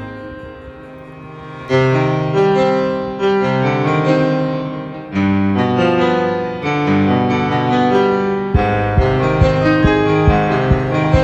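Background piano music: a slow melody of struck notes that ring and fade, with a steady low beat coming in about eight seconds in.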